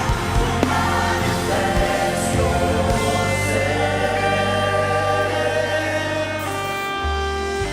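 Live gospel worship music: a choir singing over a band with a steady bass, giving way about three seconds in to held keyboard chords.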